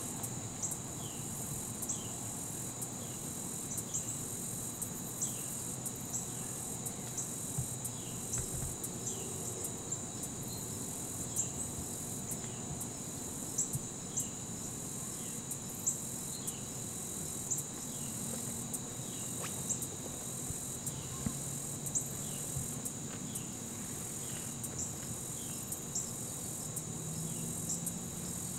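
Evening chorus of crickets and other insects: a steady high-pitched trilling, with short falling chirps repeating about once a second.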